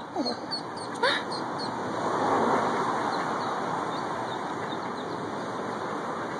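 Ducklings peeping: many short, high, rising chirps repeated throughout, over a rushing background noise that swells in the middle and then fades.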